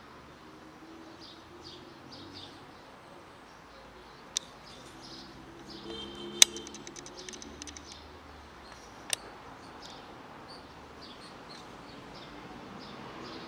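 Small birds chirping faintly in the background over a low steady outdoor hum. Three sharp clicks fall about four, six and nine seconds in; the middle one is the loudest and is followed by a brief run of rapid ticking.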